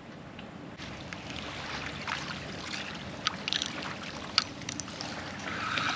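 Steady wind and water noise at the shoreline, with a few light clicks and rubs as a spinning rod and reel are handled and the line is felt for a bite. A low steady hum comes in near the end.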